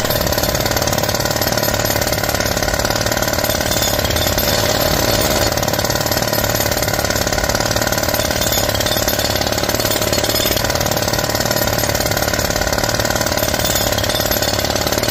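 Loud, steady motor drone at a constant pitch, unchanging throughout and cutting off suddenly at the end.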